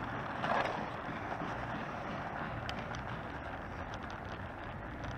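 Wind buffeting the microphone over the steady rolling noise of a kick scooter's wheels on asphalt, with a few light rattles.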